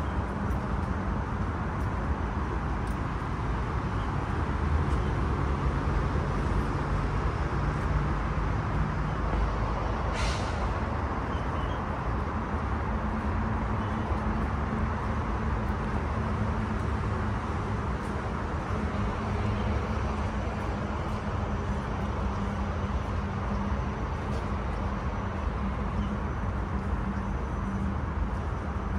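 Steady street traffic noise with a low engine hum from passing and idling vehicles, and a brief hiss about ten seconds in.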